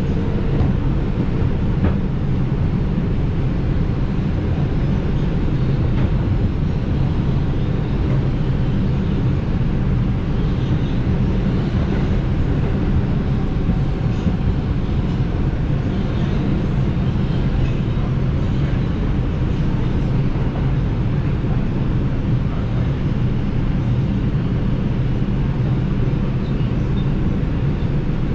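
New York City subway train in motion: a steady, unbroken low rumble with no letup.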